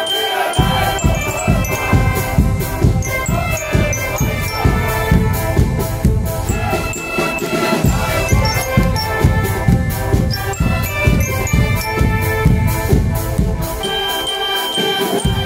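A Schalmei band playing a tune: held chords from multi-tone Schalmeien (shawms) with bell lyres ringing over them. A steady drumbeat comes in about half a second in and drops out just before the end.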